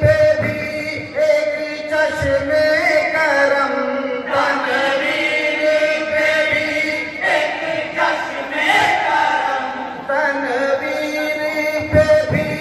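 A group of men singing a naat, an Urdu devotional poem in praise of the Prophet, in unison chorus through microphones. The melody is chanted with long held notes.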